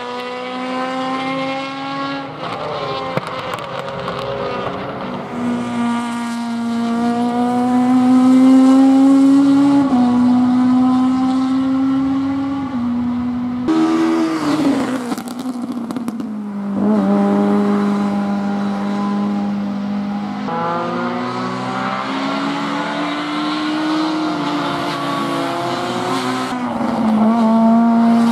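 Racing hatchback's engine at full throttle, its pitch climbing through each gear and dropping at each upshift, several times over. About halfway it falls in pitch, with a burst of hiss, as the car slows, then pulls up through the gears again.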